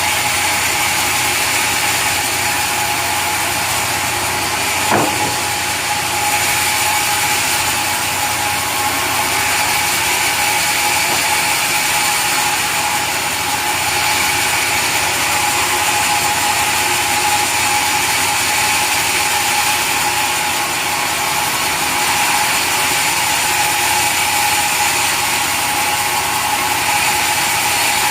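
Sawmill saw machinery running steadily with a constant whine, with one sharp click about five seconds in.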